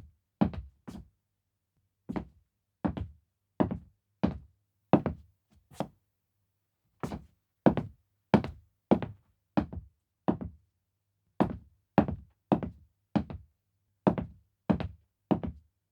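Footsteps walking on a wooden floor, each step a distinct knock. The steps come at an unhurried walking pace, in short runs of four to six with brief pauses between.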